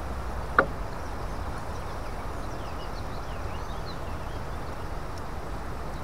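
Steady low outdoor rumble and hiss with faint, short descending bird chirps, broken by a single sharp click about half a second in.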